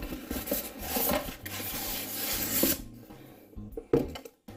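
Styrofoam packing and cardboard rubbing and scraping together as the packaging is pulled apart by hand, with a sharp knock about four seconds in.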